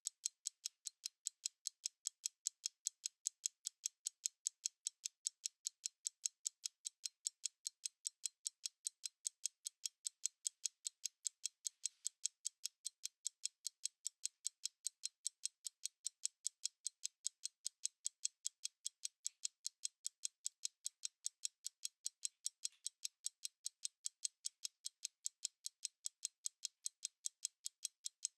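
Stopwatch ticking: crisp, high, evenly spaced ticks several times a second, never pausing.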